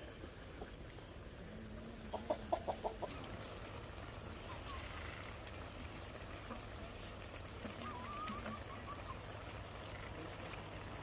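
Free-range chickens clucking. A quick run of about six clucks comes about two seconds in, followed by a few softer clucks later on.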